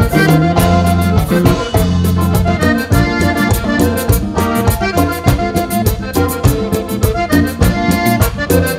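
Instrumental passage of Panamanian música típica played live: an accordion carries the melody over a fast, steady percussion beat and a bass line.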